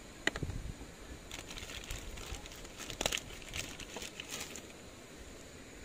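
Crinkling plastic and light crisp clicks, like a wrapper or packet being handled, lasting about three seconds from a second in. A single sharp click comes first.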